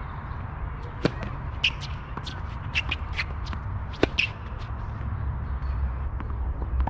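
Tennis racquets striking the ball: a serve about a second in and a groundstroke about four seconds in, each a sharp pop, the second the louder. Short high squeaks come between them over a steady low rumble.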